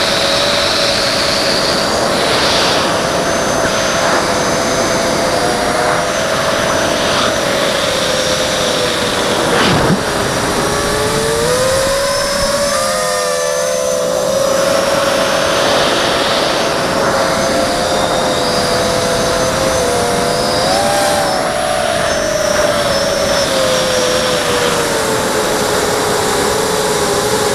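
A hexacopter's six Multistar Elite 2204 2300KV brushless motors spinning Gemfan 5030 three-blade props, making a steady whine of several close tones over a rushing hiss. The pitch sags and rises with throttle, dropping about ten seconds in, where there is a short click, and falling away near the end.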